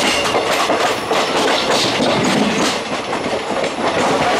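Express train running, heard from on board: steel wheels clattering over rail joints and junction points, over a steady rumble of the moving coaches.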